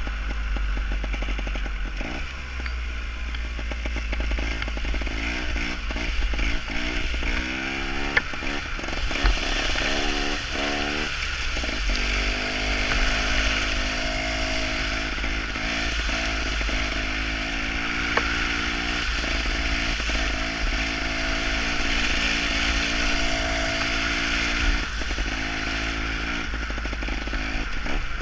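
Gas Gas TXT trials motorcycle's two-stroke single-cylinder engine being ridden, revving up and down so that its pitch keeps rising and falling, over a steady low rumble.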